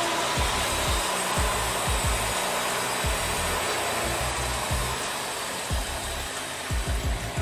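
Wood-Mizer bandsaw sawmill cutting through a cherry log: a steady, even noise of the blade running in the wood, with short low thumps underneath.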